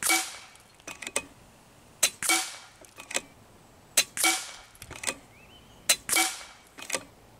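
Kalibrgun Cricket 2 Tactical .22 PCP air rifle firing four shots about two seconds apart. Each is a sharp crack with a short tail that dies away, and quieter clicks of the action being cycled fall between the shots.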